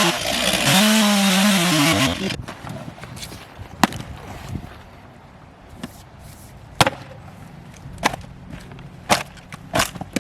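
Chainsaw running at high revs cutting into a tree stump, easing off briefly and revving again, then stopping about two seconds in. After that come about six sharp wooden knocks, roughly a second apart.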